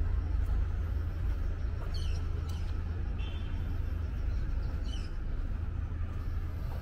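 Street ambience dominated by a steady rumble of car traffic, with a few faint, short high chirps over it.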